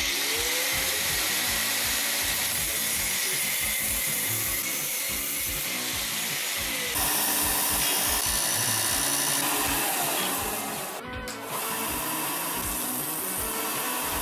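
Combination belt and disc sander running, with a part held against the sanding disc, over background music with a steady beat.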